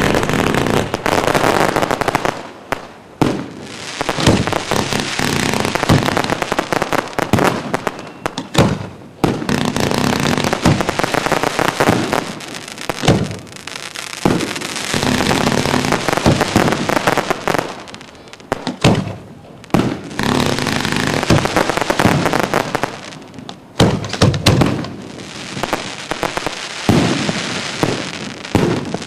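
Aerial fireworks display going off in a dense barrage: many sharp bangs of bursting shells overlapping with crackling, with only brief lulls between volleys.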